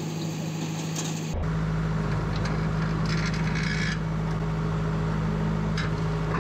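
An engine running steadily at a constant pitch, stepping up louder about a second in, with a few short scraping noises over it.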